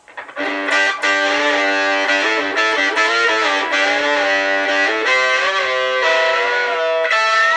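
Electric guitar played through a DigiTech Whammy DT in harmony mode: a sustained melodic line with bends, each note doubled by a pitch-shifted harmony voice a fixed interval away. It starts about half a second in and stops shortly before the end.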